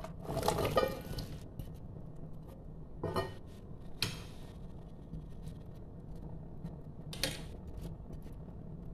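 Radish chunks tipped from a metal bowl into a stainless steel pot of broth, a short clatter and splash about a second in. This is followed by a few brief knocks of metal utensils against the pot.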